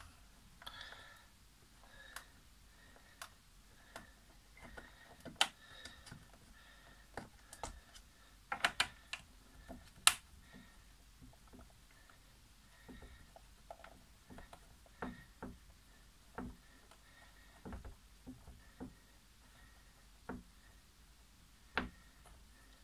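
Light clicks and taps of hard plastic parts being handled by hand on a coffee machine's base, scattered irregularly, with a few sharper clicks about nine to ten seconds in.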